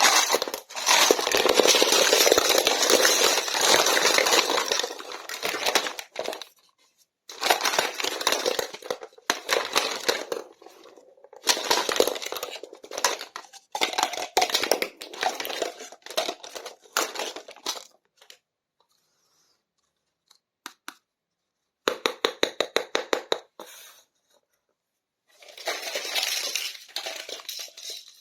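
Toy packaging being unboxed by hand: plastic and paper tearing and crinkling in loud bursts, with runs of quick clicks and light clinks of small plastic toy pieces. There are two short silent pauses between bursts.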